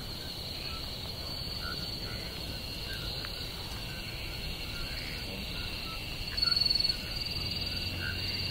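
Outdoor ambience of insects droning steadily at a high pitch, with small scattered chirps and a low rumble underneath. A short louder patch comes about six and a half seconds in.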